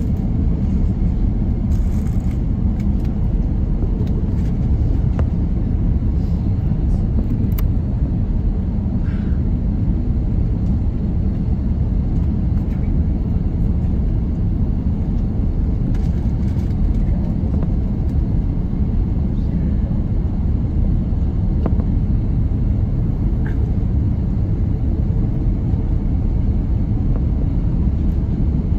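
Steady cabin noise inside an Airbus A330-300 airliner: an even, low rumble of engines and airflow that does not change.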